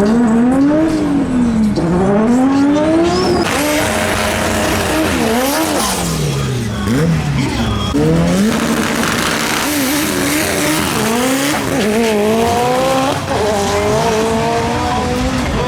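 Race car engine of a Mitsubishi Lancer Evolution IX drag car revving hard, its pitch rising and falling over and over, with tyre squeal from about a third of the way in.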